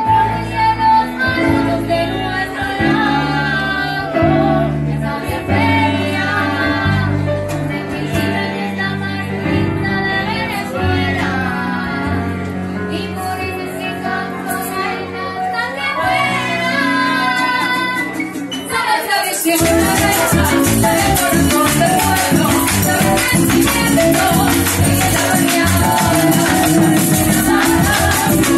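Live band music: several voices singing together over bass and percussion. About two-thirds of the way through the singing drops out and the band plays on a little louder, with fast rattling percussion.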